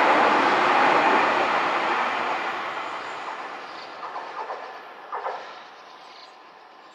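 Keio Inokashira Line 1000 series electric train running past, its noise loud at first and then fading steadily as it moves away. A few wheel clacks over the rails sound about four and five seconds in.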